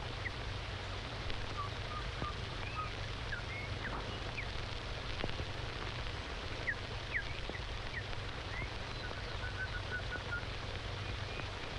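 Birds chirping with scattered short whistled calls and quick rising and falling notes, with a quick run of short repeated notes about nine seconds in. Underneath is the steady hiss and low hum of an old film soundtrack.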